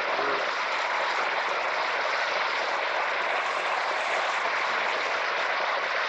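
The steady, even rush of water pouring over Gurara Falls, a waterfall about 30 metres high, heard close to its plunge pool.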